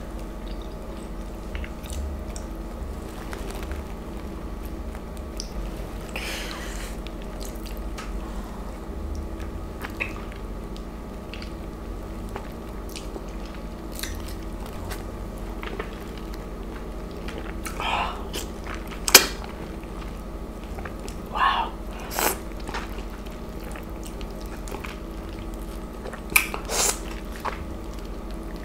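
Close-miked messy eating of a ripe, juicy East Indian mango by hand: skin peeled back and flesh bitten and chewed, with scattered wet clicks and a handful of sharper wet smacks in the second half, over a steady low hum.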